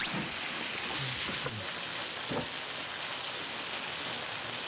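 Dak-galbi (spicy stir-fried chicken) sizzling steadily in a hot pan, with a few light clicks.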